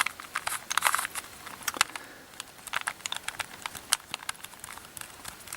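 Rubik's Cube being twisted by hand: irregular plastic clicks and clacks of its layers turning, in quick runs with short gaps.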